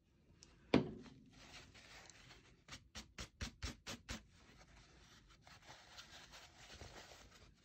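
A sharp knock about a second in, then a quick run of rubbing strokes, about five a second for a second and a half, as a cloth is scrubbed over embossed cardstock to wipe paint off the raised letters, with fainter rubbing after.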